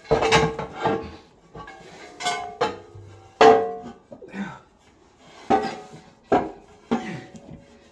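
A series of sharp metallic knocks and clangs, each ringing briefly, as the fuel tank and its mounting bracket are forced into place under the vehicle.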